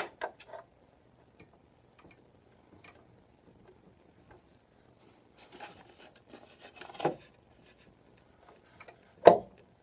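Light clicks, rustling and scattered knocks of hands and parts being handled at a motorcycle's front wheel, with one sharp knock near the end.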